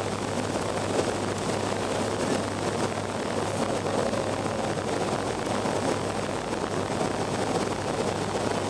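Steady engine and airflow noise inside the passenger cabin of a BAe Avro RJ85 airliner with its four Honeywell LF507 turbofans running and the flaps extended on the approach. A steady low hum sits under an even rush of air.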